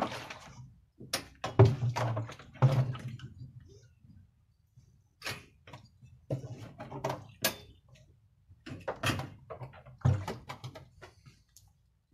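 Irregular knocks, clunks and scrapes as a plastic barrel is shifted about and an outboard motor's leg and propeller are tilted down into it.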